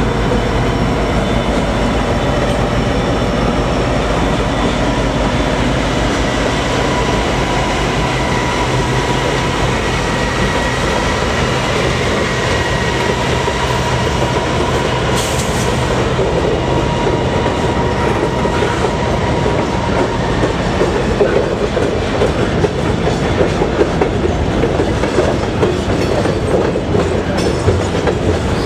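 A CN freight train passing close by: the diesel locomotives, an EMD SD75I and a GE C40-8M, run past first. Freight cars follow, their wheels clicking over the rail joints, with the clicking getting louder and more uneven in the last third.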